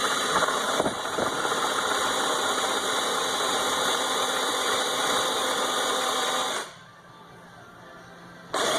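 Cordless drill running under load with a side-cutting drill bit cutting sideways through plastic, a steady motor whine with rattle; it stops after about seven seconds and starts again near the end. The owner suspects the drill's battery is running a little low.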